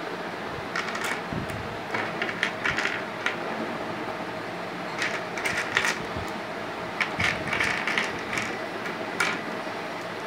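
Small plastic flower-shaped building blocks clicking and clattering as they are handled and snapped together, in several short runs of clicks, over a steady background hum.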